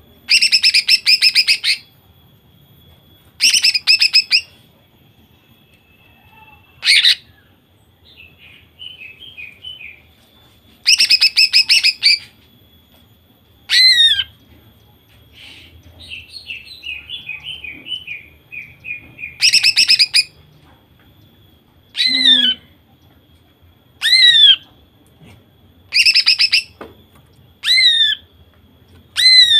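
Female greater green leafbird (cucak ijo) calling loudly in about ten short bursts of rapid trilled notes, a few seconds apart. Several bursts end in a falling whistle, and softer runs of twittering fill two of the gaps.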